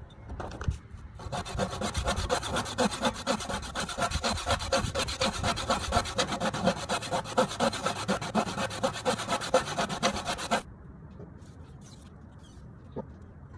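Handsaw cutting a wooden board: a few short starting strokes, then fast, steady back-and-forth sawing for about nine seconds that stops suddenly.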